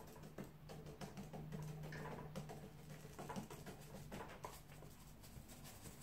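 Faint, irregular soft tapping of a paintbrush dabbing paint onto watercolour paper, over a faint low steady hum.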